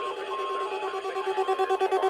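Electronic tones: a simple beeping tune of short held notes near 1 kHz over lower tones that begin pulsing fast and grow louder about halfway through, like a ringtone.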